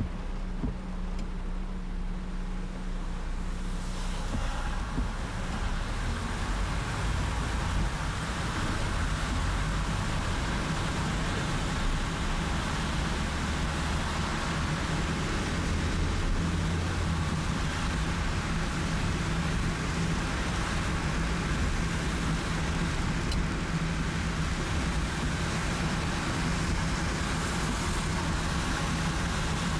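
Car driving on a rain-soaked road in heavy rain: a steady low drone of engine and tyres under a broad hiss of rain and tyre spray, which grows louder about four seconds in and then holds steady.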